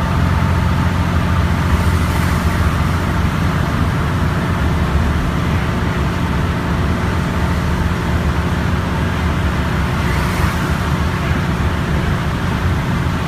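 Inside a Mercedes-Benz Citaro C2 single-deck bus driving at a steady speed: a steady low engine drone with road and tyre noise. Two brief hissing swells come through, about two seconds in and again about ten seconds in.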